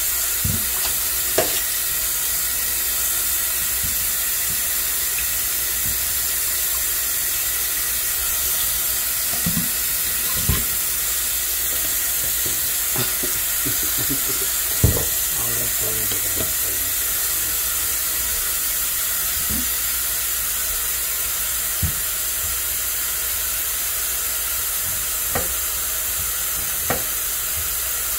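A steady high hiss runs throughout, with scattered knocks of a knife on a wooden cutting board as potatoes and onion are cut, the loudest about halfway through.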